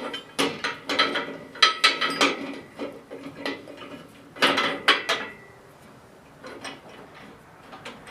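Metal parts of a wood lathe, the tailstock and tool rest, clanking and scraping as they are set onto the bed rails and slid into place. A run of knocks with a ringing metallic tone, loudest about four and a half seconds in, thinning to lighter handling noise near the end.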